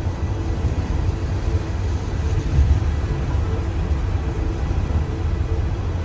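Car driving along a road, heard from inside the cabin: a steady low rumble of engine and tyre noise, with a faint steady hum above it.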